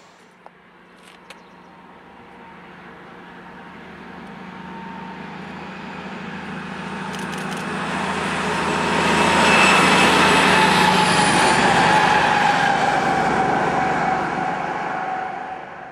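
DB class 218 diesel-hydraulic locomotive approaching and passing with its train: the engine drone and rail noise grow steadily louder to a peak about ten seconds in, the pitch dropping slightly as it goes by.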